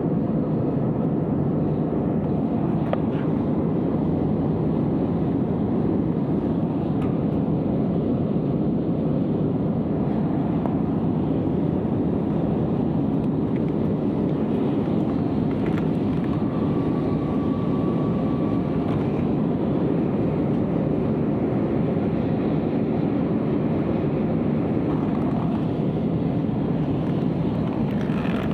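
Steady, unchanging noise of an AirAsia jet airliner's engines and airflow, heavy and low, with no rise or fall.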